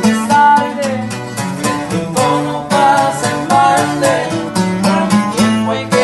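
Band music on plucked string instruments: quick picked guitar-type notes over a bass line, in regional Mexican style.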